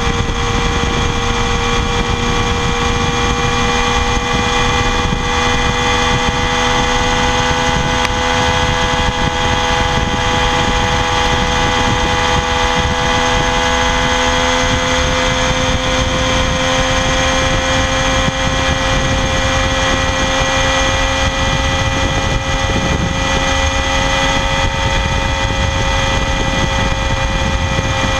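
2016 Triumph Daytona 675R's 675 cc inline three-cylinder engine running through its stock exhaust, held steadily at high revs. The pitch creeps slowly upward over the stretch, with no breaks or blips.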